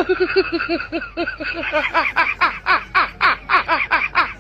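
High-pitched laughter: a long unbroken run of quick 'ha' syllables, about six a second.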